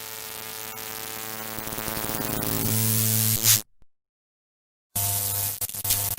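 Electronic buzzing hum with static hiss, a steady stack of tones that grows louder, cuts to dead silence about three and a half seconds in, and returns about a second later.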